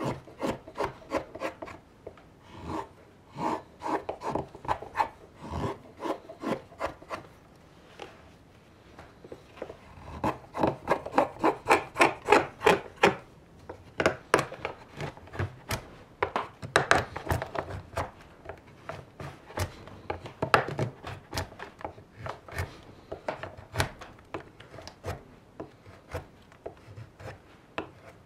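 Carving knife slicing shavings from a raw birch kuksa: a run of short cutting strokes, several a second, quickest and loudest from about ten to thirteen seconds in.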